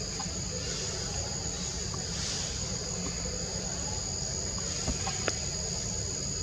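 Steady high-pitched insect drone of crickets or cicadas, two unbroken tones over a low rumble, with a sharp click about five seconds in.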